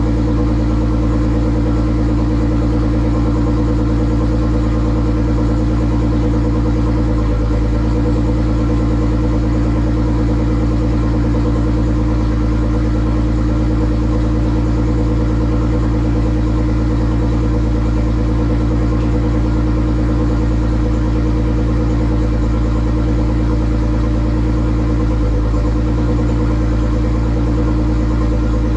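Nissan GT-R R35's heavily modified ('stage 5 plus') twin-turbo 3.8-litre V6 idling steadily, with a slight brief waver in the idle twice.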